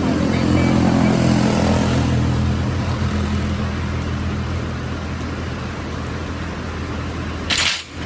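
A motor engine running steadily with a low drone, loudest in the first couple of seconds and then fading, over a steady hiss. A brief loud rush of noise comes near the end.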